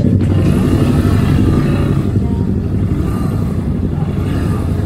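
Motorcycle engine running steadily under way, with a continuous low rumble of engine and wind noise.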